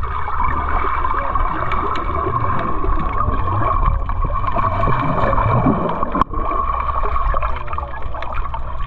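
A boat's motor running steadily with a constant whine and low rumble, mixed with water gurgling. The sound drops out for an instant a little past six seconds in, then carries on unchanged.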